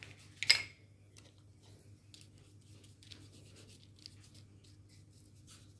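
Die-cut paper leaves being dabbed and rubbed on an ink pad, giving faint, quick taps and scratches, after one sharp click about half a second in.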